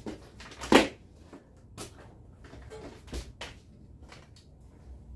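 Scattered light clicks and knocks of small objects being handled on a workbench, the loudest about three-quarters of a second in, with others near two and three seconds in.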